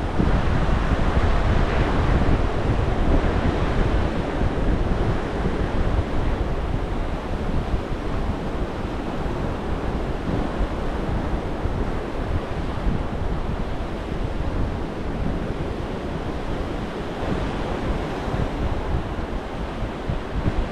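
Surf breaking and washing up on a sandy beach in a steady, swelling wash, with wind buffeting the microphone in a low rumble.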